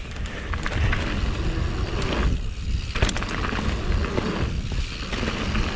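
Canyon Spectral full-suspension mountain bike rolling fast down a gravel trail: tyres crunching over loose stones, with scattered clicks and rattles from the bike, under heavy wind rumble on the microphone.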